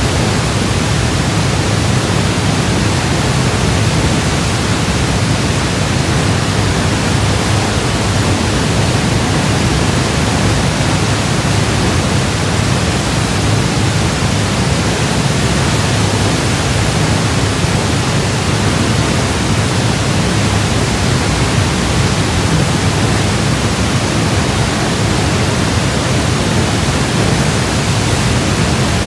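Horseshoe Falls at Niagara: a loud, even, deep rush of the falling water, heard from a tunnel portal directly behind it.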